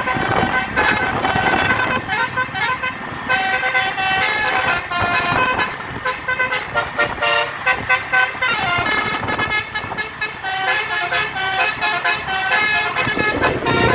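Basuri multi-tone 'telolet' bus air horn playing a tune: a string of short held notes stepping up and down in pitch, over road and engine noise.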